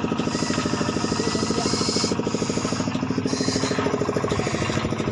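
A small engine running steadily at an even speed, pulsing about ten times a second, with a hiss that swells twice over it.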